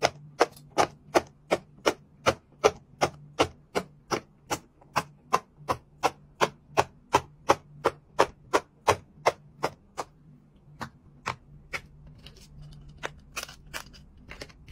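Bubbles of a jumbo silicone pop-it fidget toy being pressed one after another with the fingers, a sharp pop about three times a second. The pops grow fainter and sparser about ten seconds in.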